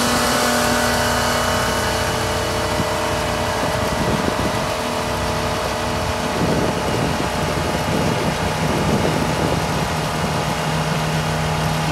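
Jeep Liberty's engine running hard in a burnout, its wheels spinning in snow. The engine holds a steady pitch, which drops to a lower steady note about halfway through.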